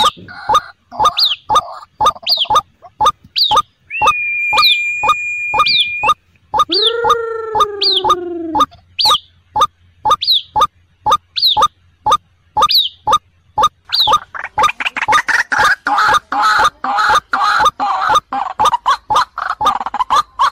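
White-breasted waterhen calls, given as the female calling the male to lure waterhens: a fast run of short repeated notes, about three a second. A steady high tone comes in about four seconds in and a long falling call about seven seconds in, and from about fourteen seconds the calls become a dense, overlapping jumble.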